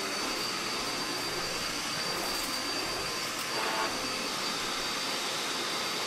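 Dirt Devil Endura Reach upright vacuum cleaner running steadily, a constant motor rush with a high whine over it, briefly louder a little past the middle as it is worked over a rug.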